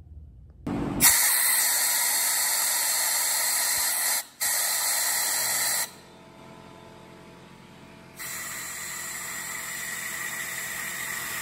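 Pressurised spray hissing from a nozzle into the jets of a two-stroke dirt bike's carburetor as it is cleaned out, in three long bursts with short breaks between them. In the longer break, about six to eight seconds in, a low steady hum remains.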